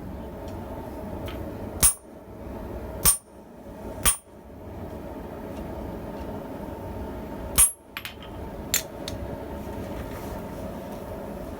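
Blacksmith's hammer striking steel on an anvil, five sharp ringing blows at uneven spacing, two close pairs and one between them. A steady rushing noise runs underneath.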